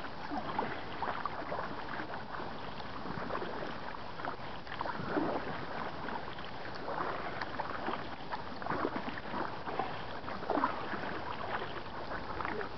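Kayak paddle strokes in river water: soft, irregular splashes and drips about every second or so, over a steady wash of water noise.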